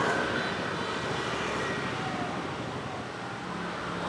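Steady vehicle noise.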